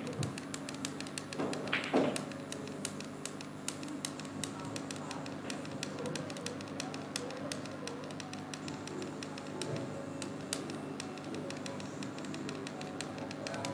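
Rapid light clicks of typing on a computer keyboard, over a low steady hum, with a louder brief sound about two seconds in.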